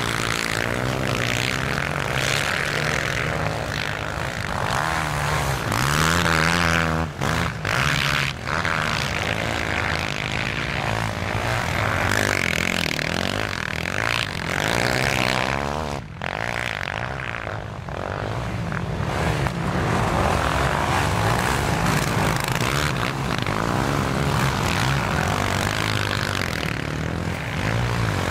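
Quad bike engines revving hard, their pitch rising and falling as the quads climb through soft sand, with a few brief drops in the sound.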